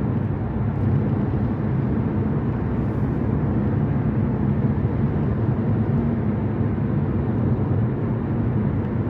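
Steady road and engine noise inside a car's cabin while it is driven at speed on a motorway.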